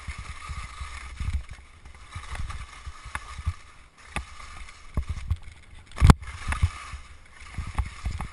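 Telemark skis scraping and chattering over hard, icy snow during a descent, with wind rumbling on the camera microphone. Short knocks come often as the skis hit bumps, one much louder about six seconds in.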